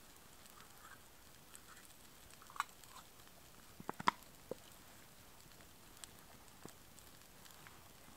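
Small wood fire in a firebox stove crackling faintly, with a few scattered sharp pops, several close together about four seconds in.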